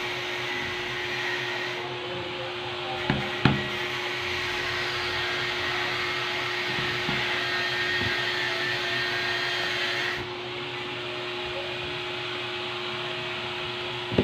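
A machine motor running steadily with a constant hum and a hiss that shifts in level twice, and two sharp knocks about three seconds in.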